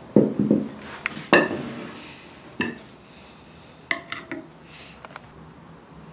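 China soup bowl and plate set down on a wooden table, with a metal spoon clinking against the bowl. The knocks and clinks come one by one, the loudest within the first second and a half and a quick run of clinks about four seconds in.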